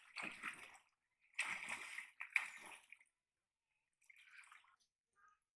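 Shallow water splashing and sloshing as a man wades and handles a freshly thrown cast net. It comes in two bursts over the first three seconds, with fainter splashes after.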